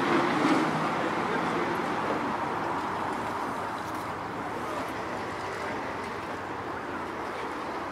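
A road vehicle passing and fading away, leaving a steady hum of city street noise.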